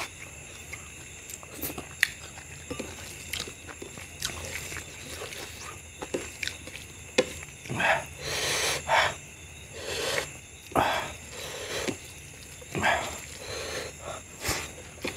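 Fingers squishing and mixing rice with mutton curry on a plate, close to the microphone, with wet clicks and crackles throughout. In the second half come several louder hissy stretches about a second long, from chewing and breathing.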